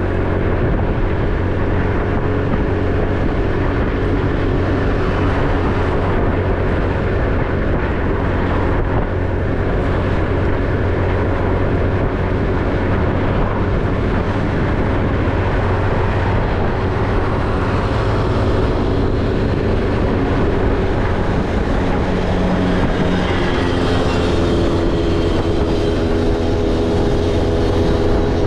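A motorcycle's engine running steadily under way, with wind and road noise. Near the end another engine tone joins in over it.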